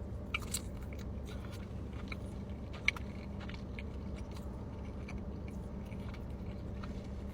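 A person chewing and biting food close to the microphone, with scattered small crunches and mouth clicks, one sharper click about three seconds in, over a steady low hum.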